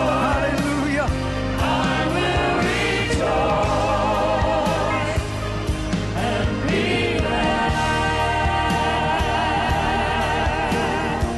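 Gospel worship music: a choir singing held notes with vibrato over a steady band accompaniment.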